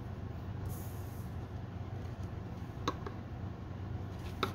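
Quiet room tone: a steady low hum, with two faint short clicks, one about three seconds in and one near the end, as a paper card is handled on a desk.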